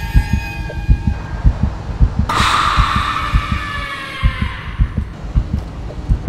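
Heartbeat sound effect, low thuds beating steadily in a regular rhythm. About two seconds in, a sudden bright ringing sound effect cuts in, slides slightly down in pitch and fades away over about two seconds.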